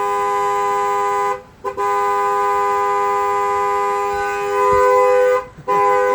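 Car horn held down in long, loud blasts. It breaks off about a second and a half in and gives a quick tap. It then sounds for nearly four seconds, stops briefly, and starts again near the end.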